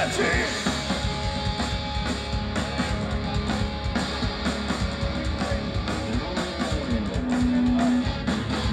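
Punk rock band playing live, with electric guitars strumming over a drum kit.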